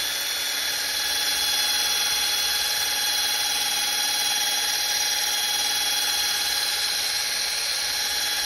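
Drill running at a steady speed, spinning a wool buffing pad loaded with heavy compound over the painted surface of a 3D-printed helmet: a steady motor whine over an even hiss.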